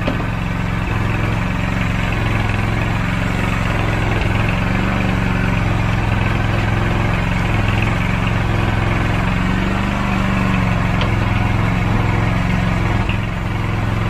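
An engine aboard a fishing boat running steadily at a constant speed, a deep even hum.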